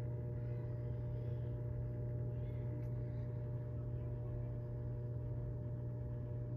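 Submersible aquarium water pumps and filters running, a steady low electric hum.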